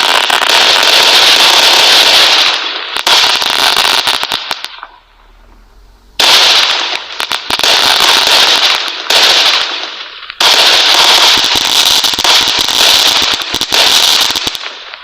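Fireworks crackling in long, dense runs of rapid pops, like a string of firecrackers going off. There is a brief lull about five seconds in, then more runs until the crackling dies away at the end.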